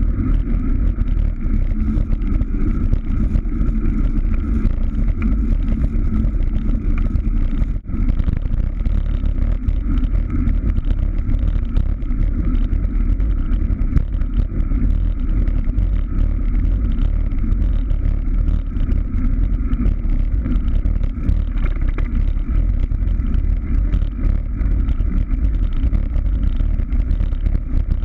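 Steady wind rush and low rumble on a bicycle-mounted camera's microphone as a road bike rides along, mixed with tyre noise on the asphalt.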